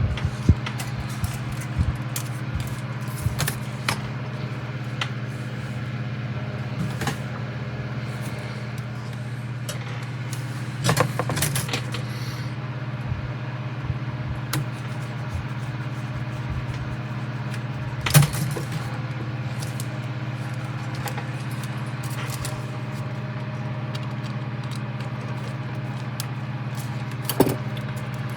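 Small clicks and rattles of plastic model parts being handled while a light bulb is worked into a hull section, over a steady low hum. A few louder clicks stand out, the sharpest about two-thirds of the way through.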